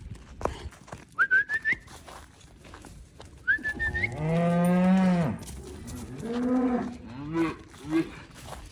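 Calves mooing: one long, loud moo that falls in pitch at its end, starting about four seconds in, then a few shorter moos. Earlier come two short, high, whistle-like chirps that rise in pitch.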